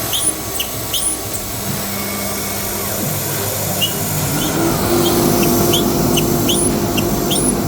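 CNC router spindle cutting plywood, with a dust extractor running alongside: a steady machine noise. A steady hum joins about halfway through and the sound grows a little louder, with short high squeaks scattered throughout.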